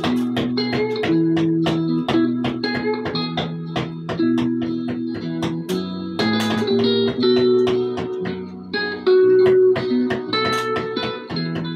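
Recorded country ballad music: a guitar plays a picked single-note melody over bass notes in an instrumental passage, with no singing.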